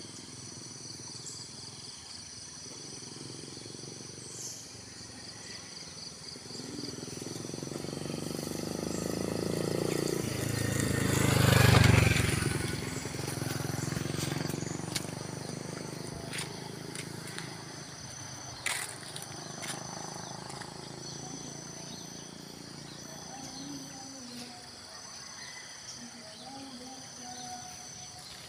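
Insects chirring steadily in high, unbroken tones. Partway through, a motor vehicle passes close by: its sound builds over several seconds, is loudest about halfway through, and then fades.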